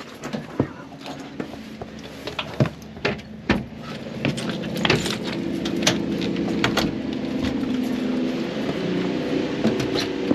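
Clicks and knocks of handling, then from about four seconds in a Mitsubishi heat pump's outdoor unit starts up and runs with a steady hum of several tones, cooling on call from the thermostat.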